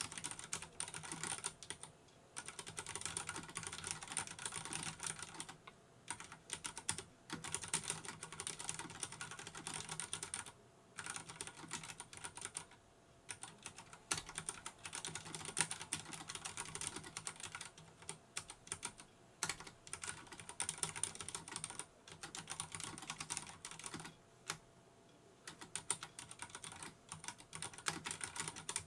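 Fast typing on a Vortex Race 3 RGB mechanical keyboard fitted with Cherry MX Brown tactile switches: a dense, irregular run of key clacks, broken by a few brief pauses.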